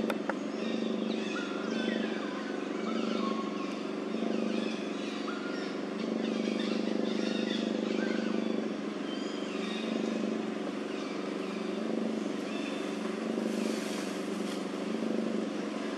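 Steady engine hum running without a break, with short high chirps scattered through it.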